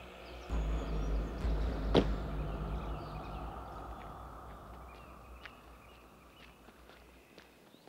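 A deep rumble swells in, peaks in one sharp hit about two seconds in, then slowly dies away: a dramatic boom-and-hit sound effect.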